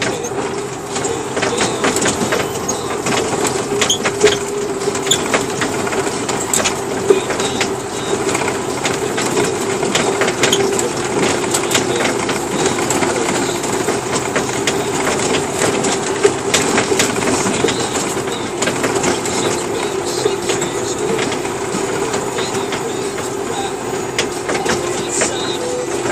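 Semi-truck heard from inside the cab while rolling slowly across a dirt lot: a steady engine drone with a constant hum, over many small rattles and crackles from the cab and the tyres on the dirt.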